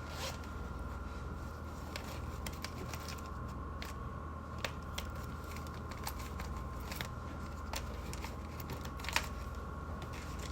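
Study cafe ambience: a steady low hum under a faint high-pitched whine, with scattered small clicks and rustles from people working at desks. The sharpest click comes about nine seconds in.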